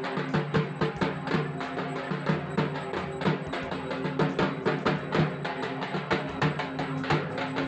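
Rhythmic drumming, about three strokes a second, over a steady held tone.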